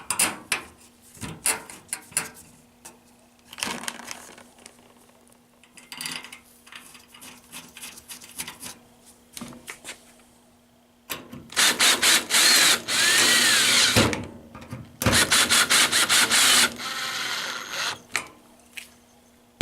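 Scattered clicks and knocks of screws and sheet metal being handled, then about halfway through a cordless drill/driver runs three times, the last run quieter, driving the screws that hold the washer's top panel.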